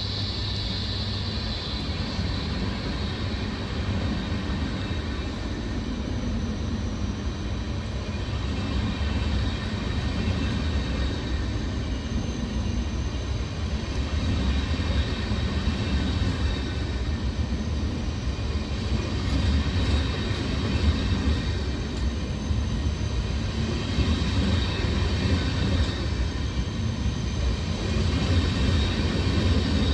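Siemens Vectron locomotive with a Railjet passenger train running on the line: a steady rumble of wheels on rail that slowly grows louder.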